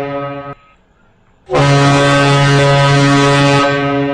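Morse code for the letter A sounded as a low, buzzy tone: the first element ends about half a second in, and after a pause of about a second the longer second element starts and holds steady.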